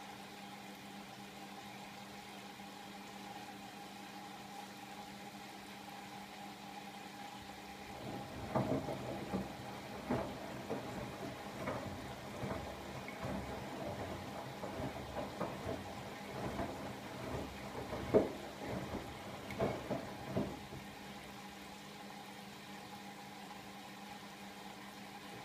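Siemens iQ700 front-loading washing machine running mid-wash: a steady motor hum with a fixed whine. From about eight seconds in, irregular thumps and splashes of the wet laundry tumbling in the drum go on for about twelve seconds, then the steady hum carries on alone.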